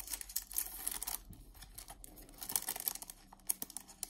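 Thin clear plastic sleeve crinkling as a warranty card is slid out of it, in two spells of crackly rustling.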